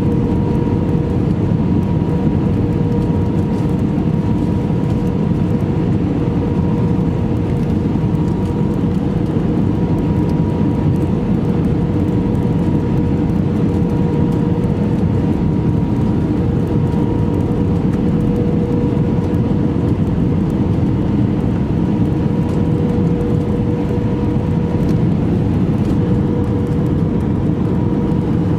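Steady cabin noise inside an Airbus A319 airliner: a low rumble of engines and airflow with a constant hum that holds one pitch and does not rise or fall.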